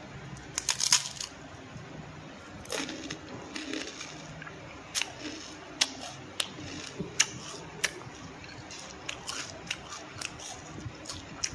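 A foil snack pouch crinkling about a second in, then scattered sharp crunches and cracks of a crispy fried rice cracker being handled and crunched.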